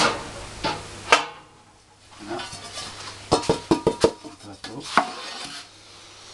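Round metal pizza tray clanking as it is handled and set down on a table: a sharp knock about a second in, then a quick cluster of metallic clanks with brief ringing in the middle, and one more knock near the end.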